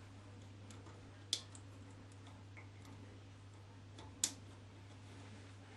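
Two short, sharp clicks about three seconds apart as wire connectors are pushed onto the terminals of a new washing machine drain pump, over a faint steady low hum.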